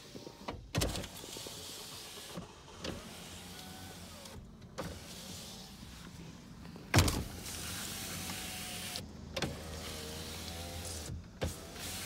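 2011 Toyota Prius power window motors running the door glass down and up in several runs, with short pauses between them. A sharp thump just under a second in, and a louder one about seven seconds in, the loudest sound.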